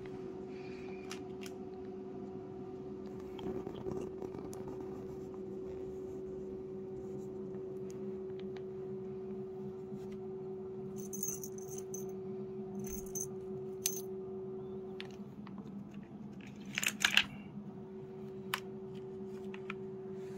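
Cat toys being played with: a few short jingles about halfway through and a louder cluster of clicks and rattles near the end, over a steady low hum.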